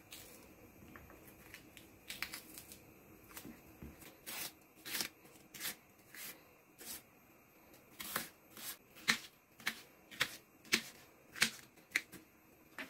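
Kitchen knife cutting a green pepper on a wooden cutting board: a string of sharp taps as the blade strikes the board. The taps start about two seconds in and come faster near the end as the pepper is diced.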